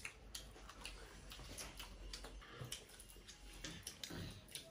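Quiet eating sounds from several people eating by hand: scattered small clicks of chewing and lip-smacking, irregular and close together.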